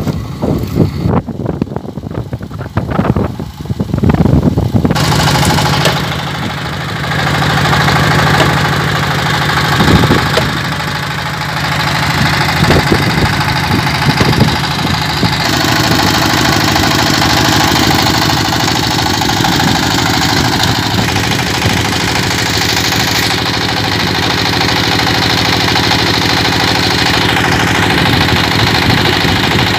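Wind buffets the microphone for the first few seconds. Then, from about five seconds in, a single-cylinder diesel engine driving a rope winch drum runs steadily, hauling the line that raises a gin pole.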